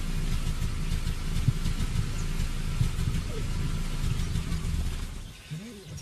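Vehicle engine idling steadily with a low rumble, falling away about five seconds in.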